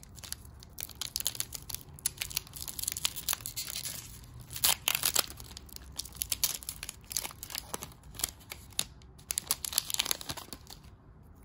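Foil booster pack wrapper being torn open and crinkled by hand: a run of sharp crackles and rips, loudest about halfway through and again near the end.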